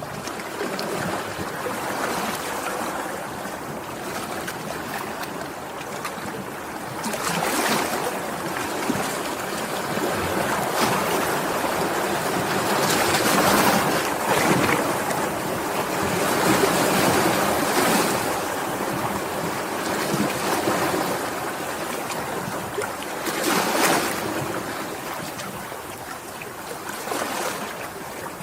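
Sea waves washing and breaking, the noise swelling and ebbing in surges, with louder splashes about a quarter, halfway and five-sixths of the way through.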